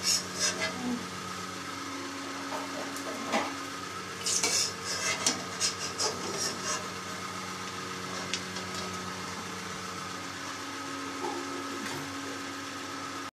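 A metal spatula scrapes and clinks against a frying pan as fritters are lifted out of hot oil, over a steady sizzle. The scrapes cluster about four to seven seconds in.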